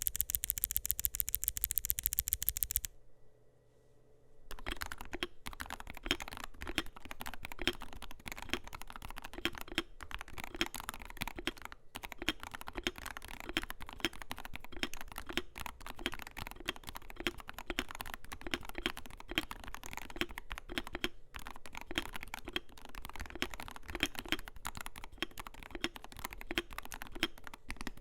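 Wooting 80HE keyboard with Lekker L60 v2 magnetic Hall-effect switches, OEM PBT doubleshot keycaps and a zinc alloy case being typed on. It opens with a very fast, loud run of clicks for about three seconds, goes quiet briefly, then settles into steady continuous typing about four seconds in.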